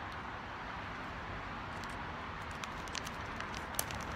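Steady outdoor background noise, a soft even hiss, with a few faint light clicks in the second half.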